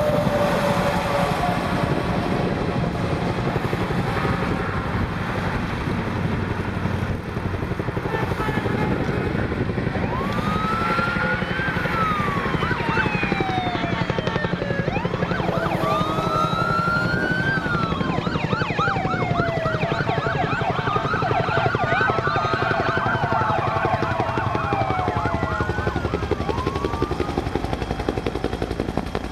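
Interstate traffic noise from passing cars and trucks, with several police sirens joining in about ten seconds in from the motorcycle escort leading the convoy. The sirens overlap in slow rising-and-falling wails and a fast yelp.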